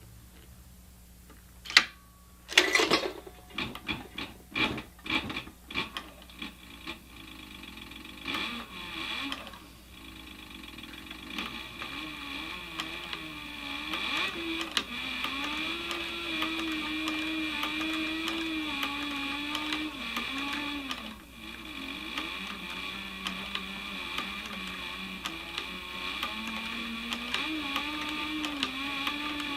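Leather sewing machine stitching a leather knife sheath, running steadily with a wavering hum and briefly stopping about two-thirds of the way through. It is preceded by a run of sharp clicks and knocks over the first several seconds.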